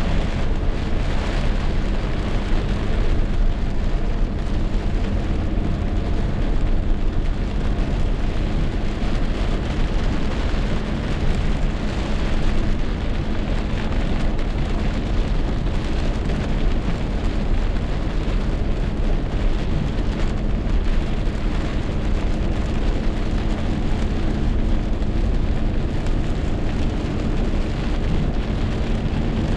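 Heavy rain pouring down in a rainstorm: a loud, steady rush of noise with a strong low rumble underneath and no let-up.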